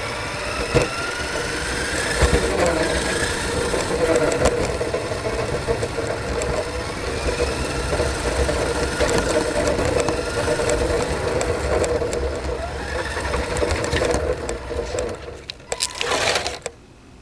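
Small electric motor of a radio-controlled model whining as it runs, its pitch rising and falling with the throttle, with scattered knocks and bumps. It cuts off near the end.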